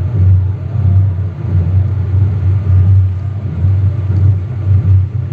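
A loud, deep rumbling drone that swells and dips in level every second or so.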